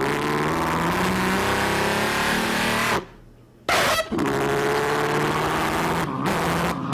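A comedian's vocal imitation of a truck through a stage microphone: a long engine-like drone, a short blast about four seconds in, then another long drone.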